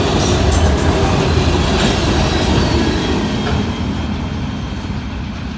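Freight cars (autoracks and tank cars) rolling past, wheels clicking over the rail joints. The sound fades over the last couple of seconds as the end of the train moves away.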